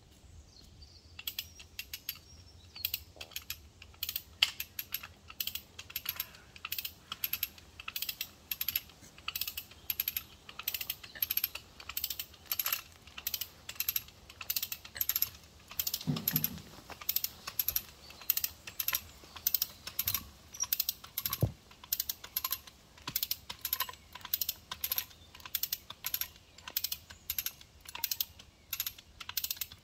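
A hand-operated cable winch ratcheting in a steady rhythm of sharp clicks, about two a second, as it hauls a boulder up out of the ground. A couple of low thuds come partway through as the stone shifts.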